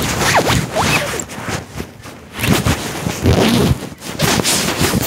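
Clothing fabric rubbing and rustling loudly against a phone's microphone inside a pocket, in irregular scrapes and swishes.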